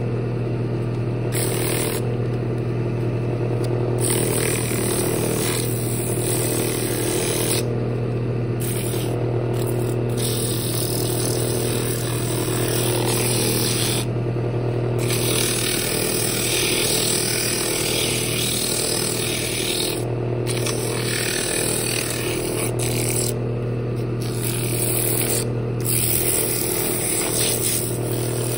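Wood lathe running with a steady hum while sandpaper is pressed against the spinning wooden lid, making a scraping hiss that stops briefly several times as the paper is lifted off and put back.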